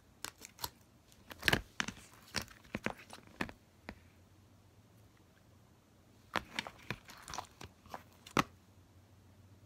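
Slime squished and pulled by hand, giving a run of sharp sticky pops and clicks in two bursts, one in the first four seconds and another from about six to eight and a half seconds in.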